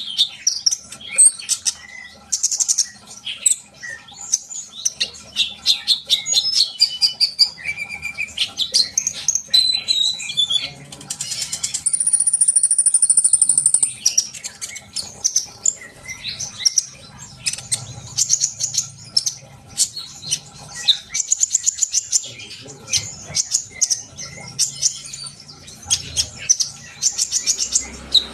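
Olive-backed sunbird (kolibri ninja) singing non-stop, a fast, varied run of high chirps and twitters, with a buzzy high trill held for about two seconds near the middle.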